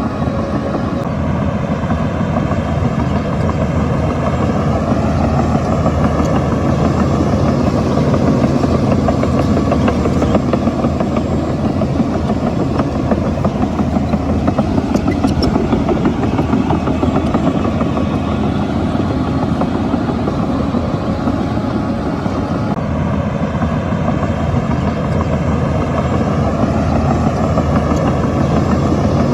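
Shantui bulldozer's diesel engine running steadily as it works the fill, its pitch rising and falling slightly.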